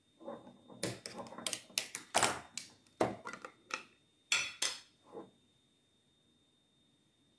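Kitchen clatter: a quick, uneven run of sharp knocks and clinks of utensils against dishes or a board, stopping about five seconds in.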